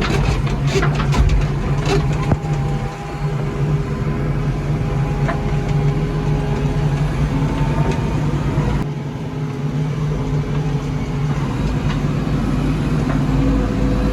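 JCB backhoe loader's diesel engine running steadily, with a few sharp clicks and knocks in the first two seconds.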